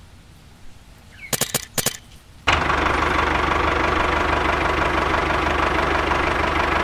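Tractor engine idling steadily with an even low hum. It comes in abruptly about two and a half seconds in, after a quick run of sharp clicks.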